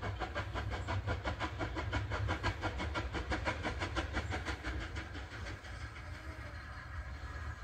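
Distant steam locomotive working hard, its exhaust beating in a fast even rhythm of about six chuffs a second, the beats fading out about five seconds in, over a steady low rumble.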